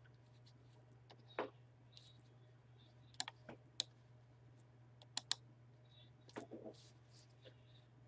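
Scattered clicks of a computer mouse and keyboard: a handful of sharp ticks, some in quick pairs, spread over several seconds, over a faint steady low hum.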